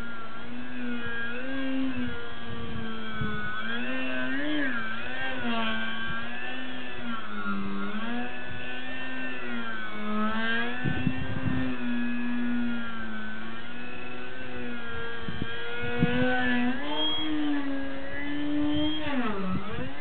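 Skeeter 36 radio-controlled aerobatic model plane's motor and propeller running in flight, a steady buzzing whine whose pitch wavers up and down with throttle and passes, dipping sharply then rising near the end. Wind buffets the microphone briefly a couple of times.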